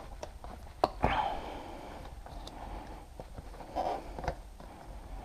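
Hands working a motorcycle's plastic side fairing panel loose: a sharp click just under a second in, a short scrape right after it, and a few quieter knocks and rustles.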